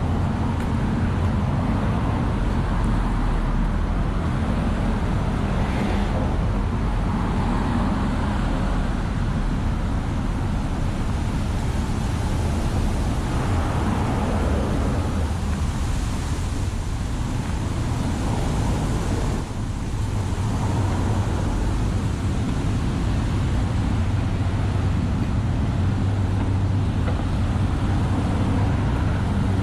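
Wind buffeting the microphone, a steady low rumble, mixed with road traffic whose passing cars swell and fade a few times.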